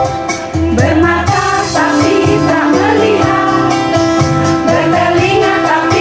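Women's choir singing with electronic keyboard accompaniment. The keyboard plays alone at first, and the voices come in about a second in.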